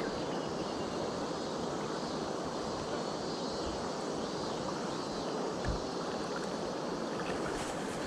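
River current rushing steadily around a wading angler, an even hiss of flowing water.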